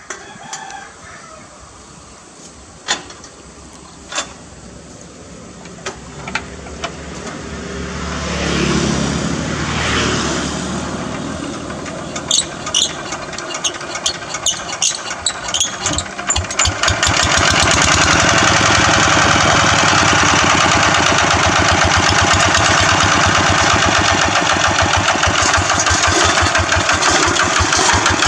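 Single-cylinder diesel engine of a two-wheel hand tractor being hand-cranked to start: a few sharp metal clanks, the cranking speeds up, then uneven separate firing pops from about twelve seconds in before the engine catches and runs steadily from about seventeen seconds on.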